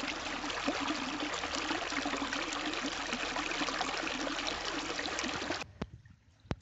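Water running down a short stepped stone channel and splashing into a round fountain basin, a steady trickle. It cuts off abruptly about a second before the end.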